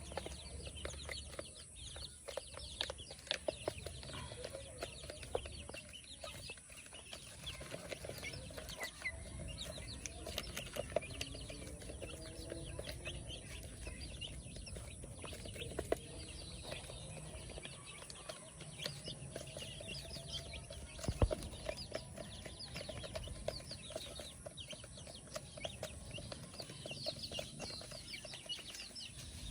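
Chickens clucking softly, with many small ticks and knocks scattered throughout.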